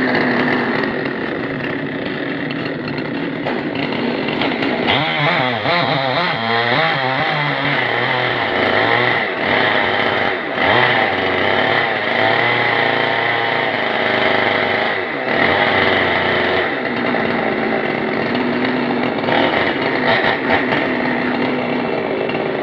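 Husqvarna 390 XP two-stroke chainsaw running loudly without a break, its engine pitch wavering up and down between about five and sixteen seconds in, then steadier.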